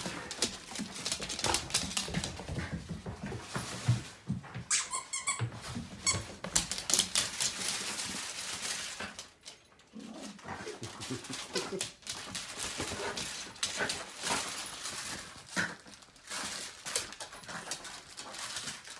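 Two pit bull–boxer mix puppies playing with plush toys on a hard floor: dense quick clicks and scuffles of claws and mouthing, with short vocal sounds from the dogs. There is a brief lull about nine seconds in.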